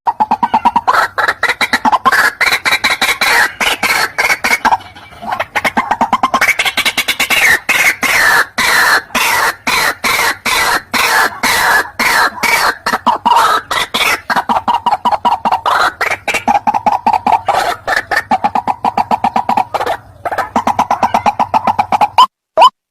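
White-breasted waterhen (ruak-ruak) calls from a bird-lure recording: a loud, fast, dense run of repeated calls, briefly broken about five seconds in and again near the end.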